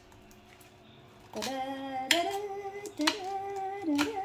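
A person humming a tune in long held notes, starting about a second in and shifting pitch a few times, with a few sharp clicks in between.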